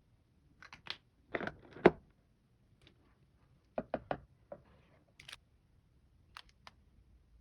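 Grooming kit items being handled: a scattered series of sharp clicks and light taps, like caps, bottles and small tools set down and picked up. The loudest knock comes about two seconds in, and a quick run of three clicks about four seconds in.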